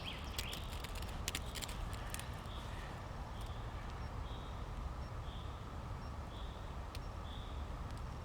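Sharp scrapes of a ferrocerium rod (firesteel) being struck to throw sparks onto tinder, bunched in the first couple of seconds. After that come faint high chirps repeating about once a second over a low steady rumble.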